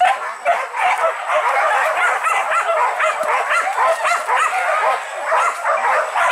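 A pack of hunting dogs barking and yelping in a continuous, overlapping chorus while in pursuit of wild boar.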